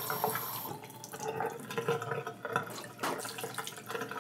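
Bathroom sink tap running as a toothbrush is rinsed, shut off abruptly under a second in, followed by a few light knocks and clicks of things handled at the sink.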